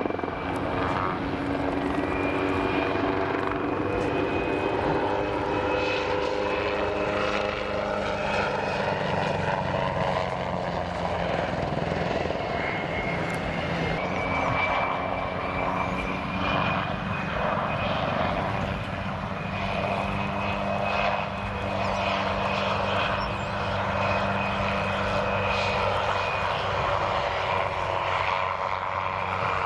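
PZL SW-4 Puszczyk light helicopter in flight: the steady chop and hum of its rotors with the high whine of its turbine engine. The whine and the lower tones drift up and down in pitch as the helicopter moves past.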